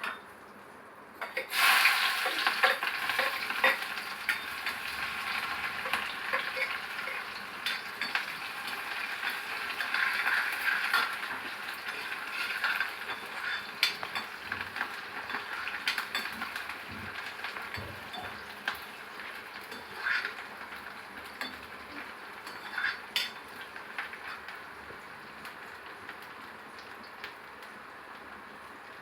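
Eggplant and potato frying in a pan of hot oil: a sizzle that starts suddenly about a second and a half in and slowly dies down, with scattered clicks and scrapes of a spoon stirring against the pan.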